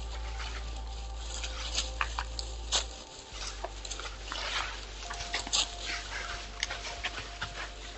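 White-tailed buck nosing and stepping in dry fallen leaves while feeding, making irregular rustles and sharp crackles.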